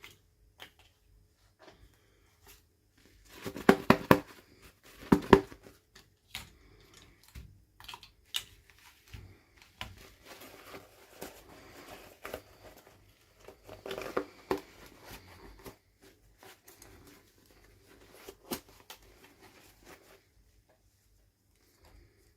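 Toy packaging being handled and torn open: crinkling, tearing and sharp clicks in irregular bursts. The loudest bursts come about four and five seconds in, with another stretch around fourteen seconds.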